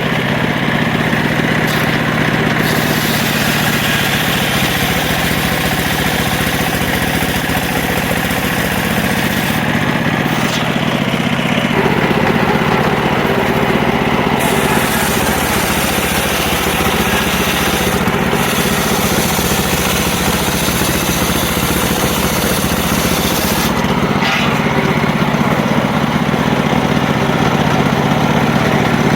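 Circular saw running steadily through wood, with a harsh high hiss that comes and goes in long stretches as the blade cuts.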